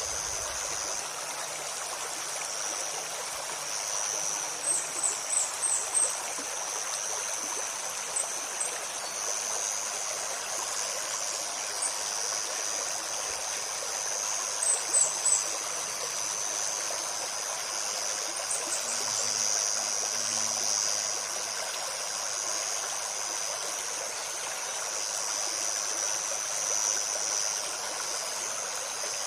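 Forest stream running steadily over stones, under a steady high-pitched insect drone. Small birds give short, high chirps in quick runs of three or four notes, a few times.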